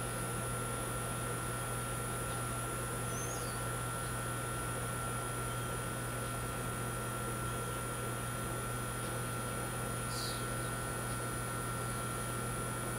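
Steady outdoor background hum over a constant hiss, with a faint high whine throughout and two brief high chirps, about three and ten seconds in.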